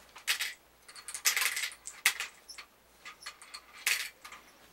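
Small balls clicking and rattling down the plastic ramps of a toy marble-run tower: scattered clacks, with a longer rattle about a second in and another sharp clatter near the end.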